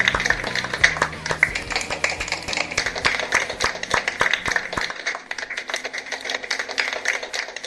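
Hands clapping and tapping in quick, uneven strokes. A low steady hum underneath stops about five seconds in.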